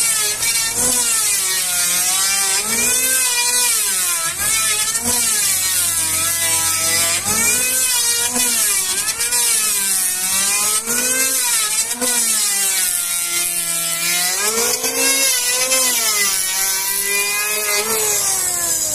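Electric hand planer shaving a hardwood beam. The motor's whine sags and recovers in pitch over and over, about once a second, as the blades bite into the wood on each pass, over a steady high hiss of cutting.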